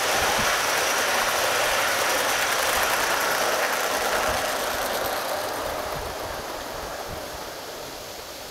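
Gauge 1 model train of a BR Standard Class 5 with its coaches running along the garden track, wheels rattling over the rails with a few low knocks, fading steadily as it moves off from about halfway through.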